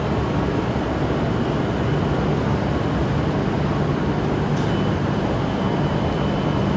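Steady hum and rumble of shinkansen trains standing at a covered station platform, with one faint click about two-thirds of the way through.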